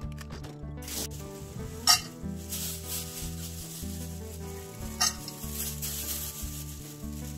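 Dried baby anchovies tipped from a plastic bag into a frying pan: a dry rustling hiss, with sharp clicks about two and five seconds in, over background music.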